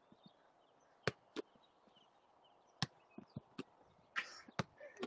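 A football being kicked in a volleying drill: about six sharp, irregular knocks of foot and ball, with a short scuff near the end.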